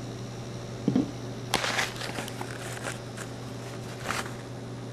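Small handling noises on a tabletop: a dull thump about a second in, a sharper knock followed by brief rustling, and another knock near the end, as a plastic glue bottle is used and set down. A steady low electrical hum runs underneath.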